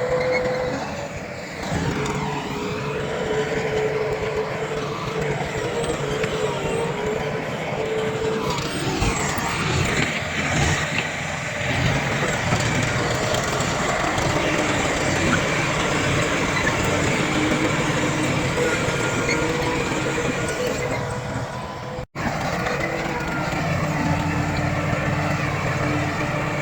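Diesel engines of a bulldozer and dump trucks running steadily, their pitch shifting a little as they work, with the sound cutting out for an instant near the end.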